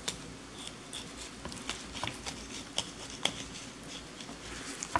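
Knife cutting into a whole surf perch on a wooden cutting board: faint, irregular small clicks and crackles, several a second, as the blade works through the fish.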